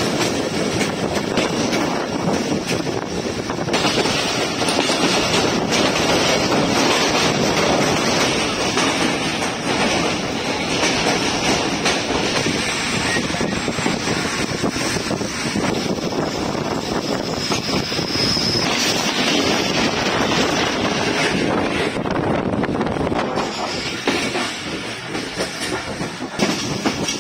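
Passenger train of Pakistan Railways running at speed, heard from inside a coach by an open window: steady running noise of the wheels on the rails, with a brief high whine about two-thirds of the way through.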